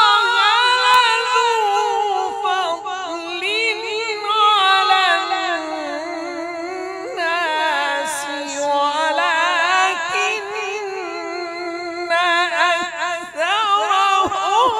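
A man reciting the Quran in the melodic, drawn-out tajweed style, holding long phrases with high, wavering, ornamented pitch, amplified through a microphone.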